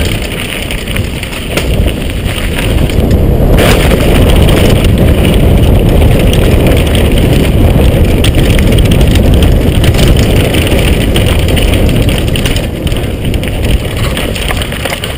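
Loud wind rush on the microphone with a downhill mountain bike's tyres rumbling and the bike rattling over rough trail, with scattered knocks.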